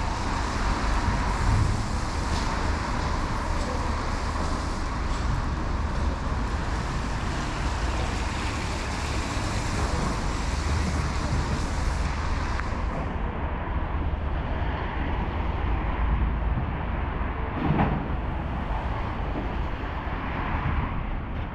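Steady city road traffic on a rain-wet street: a low rumble of engines with an even tyre hiss. The high hiss drops away about two-thirds of the way through, and a single knock sounds a little later.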